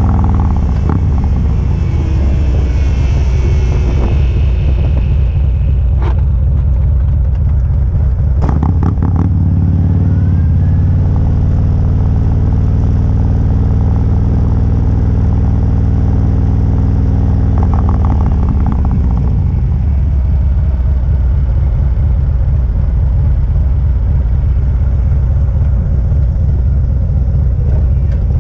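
Touring motorcycle engine running at road speed with steady wind rush, a constant low rumble. Its engine note shifts about nine seconds in and steadies again a few seconds later.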